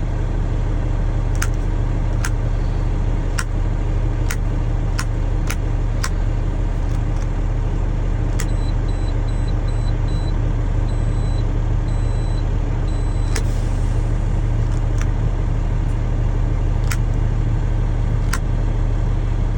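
International water truck's engine idling steadily, left running to build up pressure for the PTO. Sharp clicks come every so often, and a short run of faint high beeps sounds around the middle.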